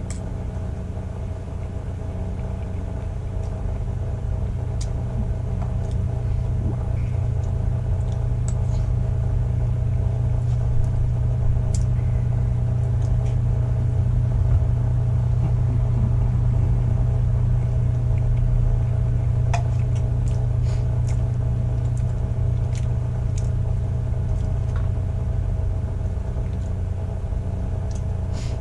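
A steady low hum runs throughout, with scattered light clicks and taps of a utensil against a steel saucepan during eating, most of them in the second half.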